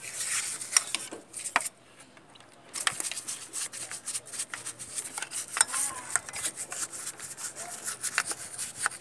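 Brush scrubbing the oily metal timing gears and pulleys of a Toyota 2C diesel engine, cleaning off oil and grime: a quick run of rubbing strokes with light clicks. The strokes stop briefly about two seconds in, then go on.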